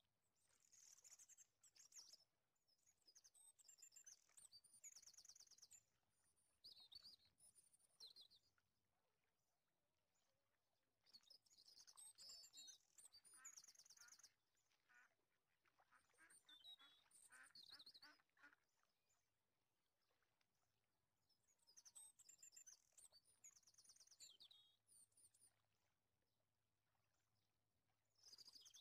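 Faint bird calls: high, rapidly pulsed chirping in bouts of a few seconds with quiet pauses between.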